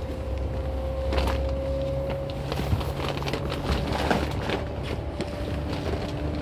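Seibu 2000 series electric train running, heard from inside the car: a low rumble under a steady whine that rises slowly in pitch, with scattered clicks and knocks of the wheels over the track.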